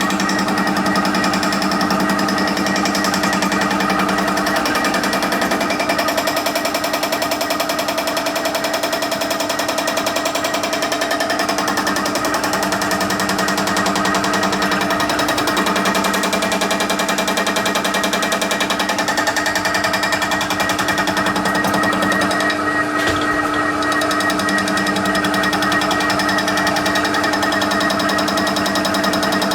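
TOS milling machine running with a fly cutter taking a light pass across a warped exhaust manifold face to skim it flat. A steady machine whine with overtones runs under a rapid, even series of strikes from the cutter hitting the metal on each turn, with a lower hum that comes and goes several times.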